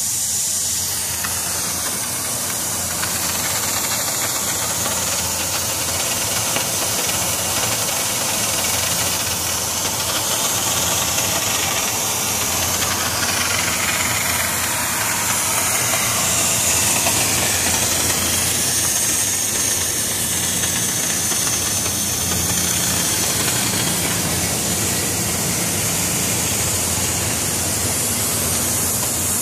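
Oxy-fuel cutting torch on a Buggo portable flame-cutting carriage, hissing steadily as its jet cuts through steel plate, with a steady low hum underneath.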